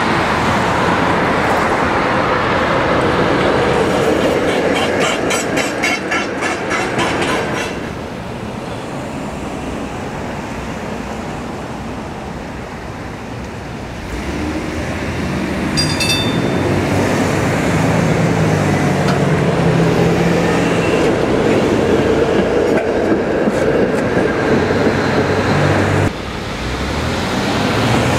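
Vintage PCC streetcars running on street track among traffic, steel wheels rolling on the rails. There is a rapid run of clicks in the first third, a short high ring about halfway through, and a low hum from the car's motors in the later part.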